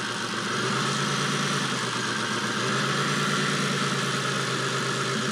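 Six-cylinder engine with coil-pack ignition idling steadily with one cylinder's spark grounded through a test light pierced into its coil boot. The shorted cylinder drops the idle speed, the sign used in a power balance test to find a misfiring cylinder.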